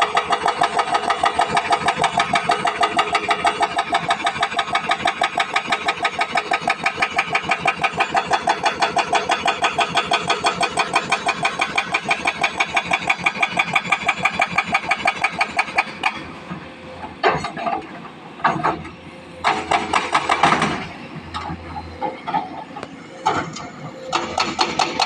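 Hydraulic rock breaker on a Sany excavator hammering rock in a rapid, even stream of blows, several a second. It stops about 16 seconds in, leaving the engine running with scattered knocks and clatters.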